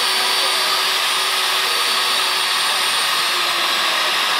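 Electric diamond core drill on its rig stand running steadily, its bit boring into reinforced concrete.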